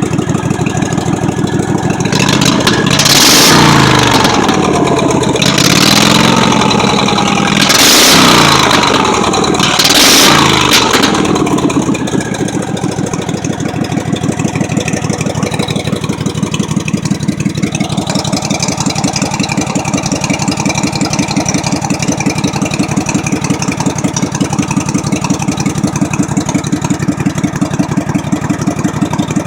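Craftsman lawn mower's small engine revved up and let back down four times in quick succession, then settling into a steady idle.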